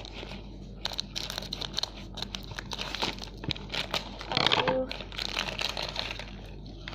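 Plastic snack packaging crinkling and rustling as it is handled and pulled about, in irregular crackles, with a louder burst of crinkling about four and a half seconds in.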